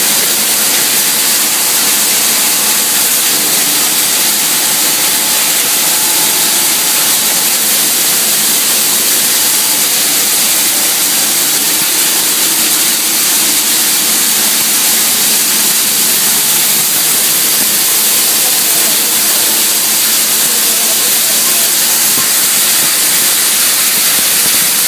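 Plastic scrap grinder running with a steady, loud hiss.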